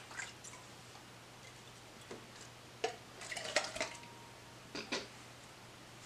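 Liquor poured from a glass bottle into red plastic party cups: a few short splashes and light knocks of the bottle against the cups, with a busier patch about three seconds in.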